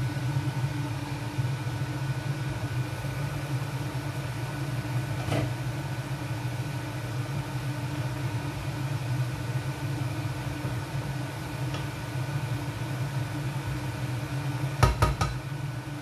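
Steady hum of a kitchen appliance running, with a faint steady whine over it. A single knock comes about five seconds in, and a quick run of three knocks near the end, from cooking utensils handled at the pan.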